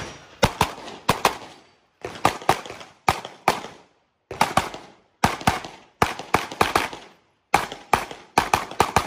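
Rapid handgun fire during a timed practical-shooting stage: shots come in quick pairs and short strings of two to four, with brief pauses between groups while the shooter moves to new positions.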